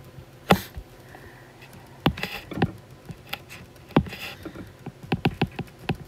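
Stylus tip tapping and clicking on a tablet's glass screen during handwriting: a run of irregular sharp ticks.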